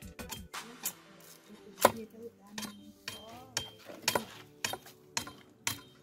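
Large knife blade chopping down along a peeled green-wood stick, carving it into a cooking stick: a series of sharp, separate knocks about one to two a second.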